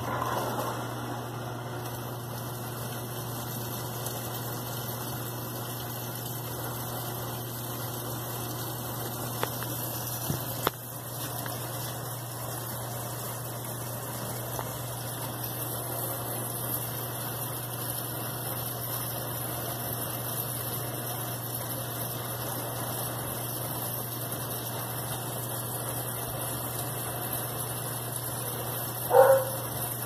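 Brastemp BWL11 top-loading washing machine filling: water starts abruptly and pours steadily from the multi-dispenser into the tub, over a steady low hum. A brief louder sound comes near the end.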